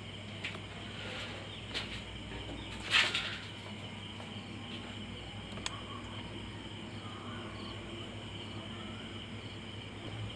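Quiet room background with a steady low hum and a faint steady high-pitched ringing. A few soft clicks and a brief rustle come about three seconds in.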